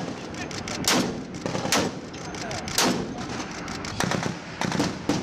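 Barrett M107 .50-calibre semi-automatic rifle firing a string of sharp shots, roughly one a second, coming quicker near the end.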